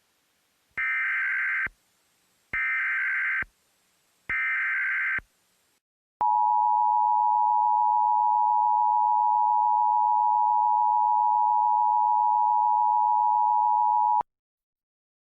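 Emergency Alert System SAME header: three short bursts of screechy digital data tones, followed about a second later by the EAS two-tone attention signal, a steady harsh tone held for about eight seconds before cutting off abruptly. Together they announce an emergency alert broadcast.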